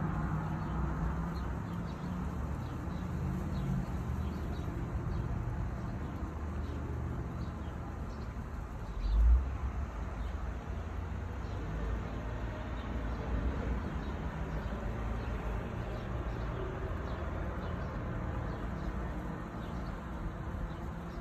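Steady low outdoor rumble with faint short high chirps over it, and one brief low thump about nine seconds in.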